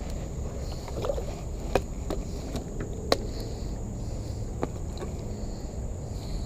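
Kayak being paddled on calm water, with a steady low rumble and water trickling. Three sharp knocks come about two, three and four and a half seconds in.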